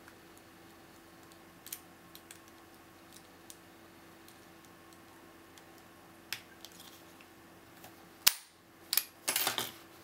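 Faint, scattered clicks of a homemade hook pick and tension wrench working the pin tumblers of an Abus 70/45 Expedition padlock. About eight seconds in comes one loud, sharp click as the lock opens, followed by about a second of rattling and knocks as the opened padlock and tools are handled.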